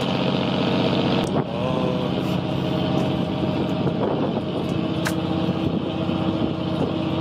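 Fishing boat's engine running steadily, an even hum, with a couple of sharp clicks.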